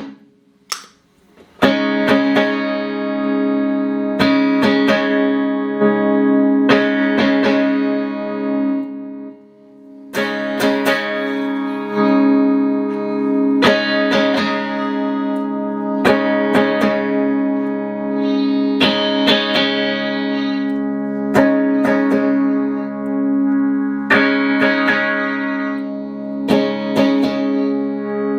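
Clean electric guitar chords strummed and left to ring through a Boss GE-7 equalizer pedal into Roland JC-120 amplifiers, a new strum about every two seconds. A brief silence with a click comes just after the start, and the sound dips for a moment about a third of the way through.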